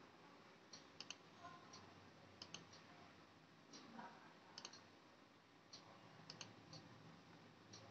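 Faint computer mouse button clicks, scattered singles and quick pairs, against quiet room tone.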